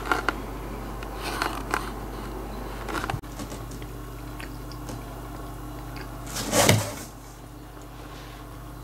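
A cat scuffing and rustling against a cardboard box as it pushes its way in: a few soft knocks early on and one louder scraping rustle about two-thirds of the way through, over a steady low room hum.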